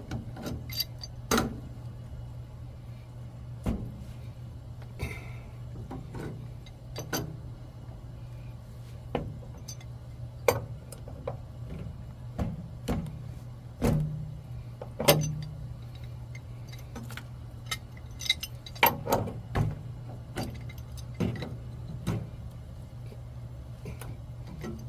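Irregular metal clinks and knocks of a pipe wrench working the threaded fittings on a water heater's plumbing, over a steady low hum.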